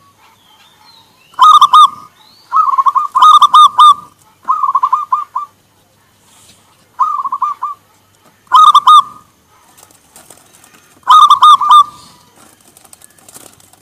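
Zebra dove (perkutut) cooing: about six short bursts of quick, stuttering coo notes, each burst lasting under a second, with quiet gaps between them.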